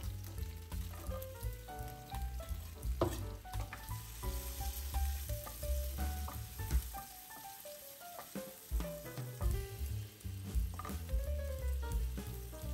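Sliced garlic sizzling in melted butter in a nonstick frying pan, stirred with a wooden spatula, with a few clicks of the spatula against the pan. Background music with a bass line plays underneath.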